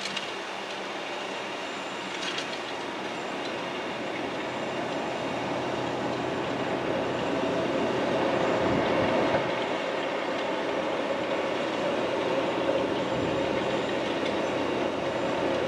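A Fendt tractor pulling a six-row precision seed planter while sowing corn: a steady running noise of the engine and working planter that grows somewhat louder about halfway through.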